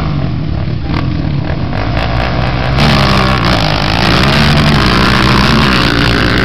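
Quad ATV engines revving at the start line, then accelerating hard off the line about three seconds in, the engine pitch climbing and dropping repeatedly as they shift up through the gears.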